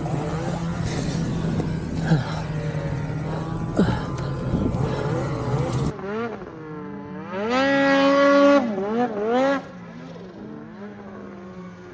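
Snowmobile engine running under a steady rush of wind and snow noise. About six seconds in, a snowmobile engine revs up, holds high briefly, blips the throttle three times and drops back to a quiet idle.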